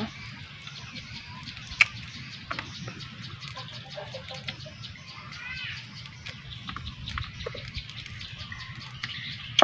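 Sharp crisp clicks and cracks from salak (snake fruit) being peeled and eaten, the loudest crack about two seconds in. About halfway through, a bird gives a short run of quick chirps.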